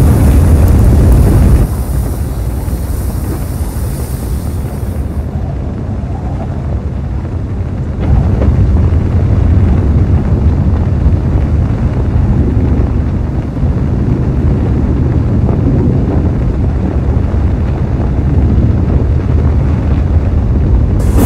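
Deep, steady rocket-thruster rumble with a windy rush, a sound effect for the Mars 2020 descent stage's retrorockets firing during powered descent. It is loudest for the first second and a half, eases off, then swells again about eight seconds in.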